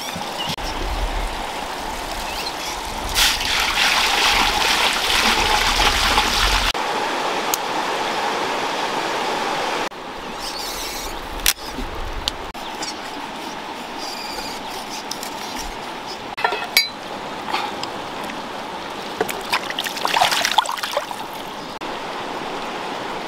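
Running water from a rocky river, a steady rushing trickle that is louder for a few seconds near the start, with a few scattered knocks and clinks.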